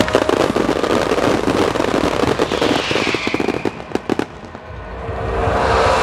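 Fireworks display recorded on a camera's built-in microphone: many shells bursting and crackling at once in a dense run of pops. It thins out and drops away about four seconds in, then a rush of noise builds again near the end.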